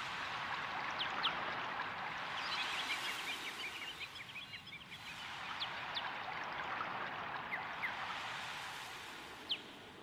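Small birds chirping and twittering over a steady rushing noise that swells and fades twice, with a dense run of twittering a few seconds in.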